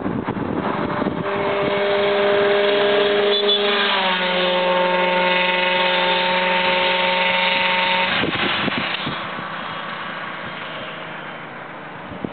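A vehicle horn held as a chord of steady tones for about seven seconds. The whole chord drops in pitch about four seconds in as the vehicle passes, then cuts off, leaving a hum of passing traffic.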